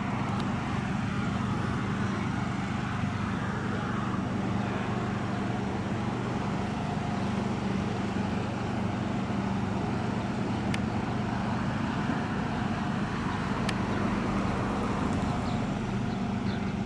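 Steady low drone of an idling vehicle engine, with two faint clicks late on.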